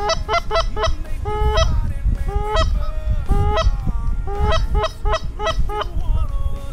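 Geese honking: short two-note honks, a quick run of them at the start, then single honks spaced about a second apart and another run near the end. A steady low rumble sits underneath.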